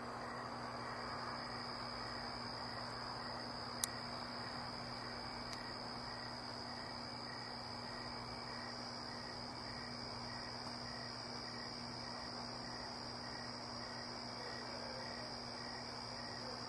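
Crickets trilling at night: a steady high-pitched trill with a fainter, slower regular pulsing beneath it, over a low hum and hiss. A single sharp click about four seconds in.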